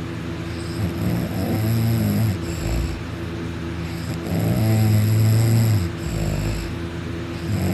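A person snoring heavily in deep sleep: two long, deep snores, each about one and a half to two seconds, about three seconds apart, with another starting at the very end.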